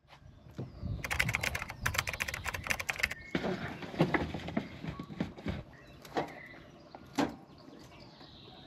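A burst of very rapid clicking for about two seconds, starting about a second in, followed by a few separate knocks spaced over the next few seconds.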